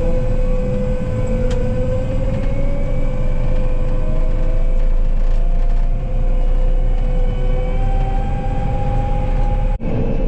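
Combine harvester driving on the road: a steady, loud engine drone with a whine that slowly rises in pitch.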